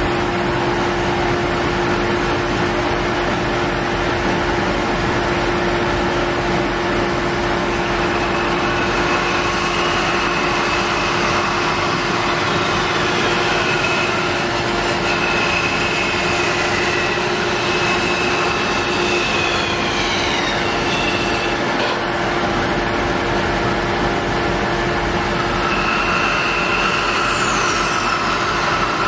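Bandsaw running and cutting through a thick wooden chair-leg blank: a steady machine noise, with a high whine from the blade in the cut that comes and goes from about nine seconds in.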